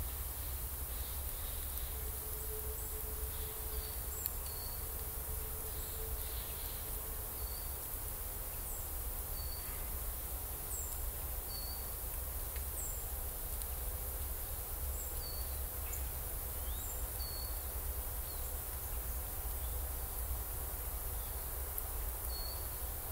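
Small forest birds giving short, high, thin call notes, one every second or two, over a steady low rumble.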